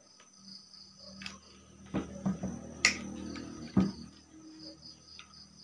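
A few plastic knocks and clicks from a PVC toy gun being handled and moved, clustered between about two and four seconds in, over crickets chirping steadily in the background.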